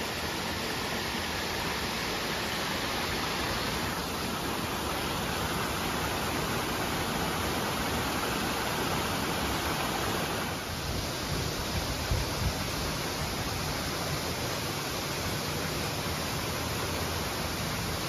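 Small mountain creek rushing steadily over rocks and down a short cascade into a pool, an even, unbroken water noise.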